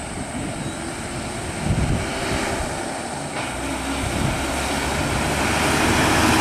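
Diesel engine of a Lanka Ashok Leyland bus running, growing steadily louder from about halfway through as the bus pulls away.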